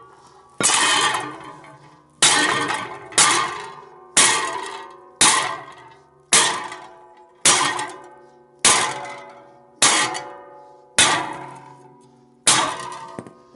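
Sledgehammer striking a steel pipe set on a steel socket, driving a heated fitting onto the broken socket. About eleven blows come roughly a second apart, each a sharp clang with a long metallic ring.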